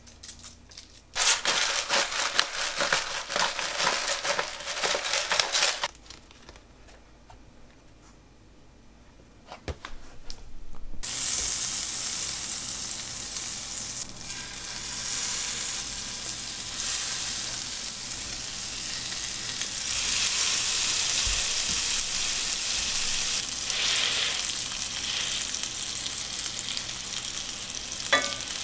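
Food frying in a pan: a crackling sizzle for about five seconds, a quieter stretch, then a steady, louder sizzle from about eleven seconds on.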